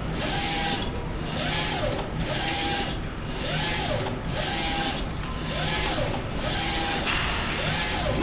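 UV flatbed printer's print-head carriage shuttling back and forth across the bed, about one pass a second. Each sweep brings a motor whine that rises and falls as the carriage speeds up and slows down, with a hiss that swells and drops in time with the passes.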